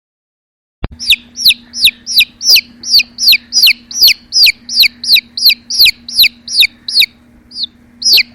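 A chick peeping: loud, high cheeps that fall in pitch, about three a second, starting about a second in after silence, with a short break near the end.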